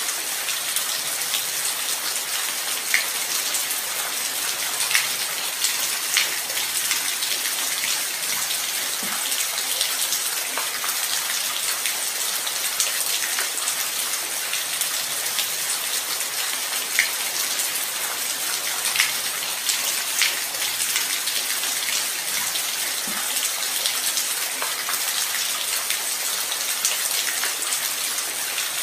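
Steady light rain: an even hiss with scattered sharper drop ticks here and there.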